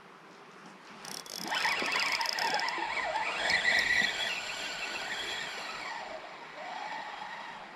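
Fishing reel being cranked during a retrieve, squeaking with a wavering whine for about six seconds, starting about a second in.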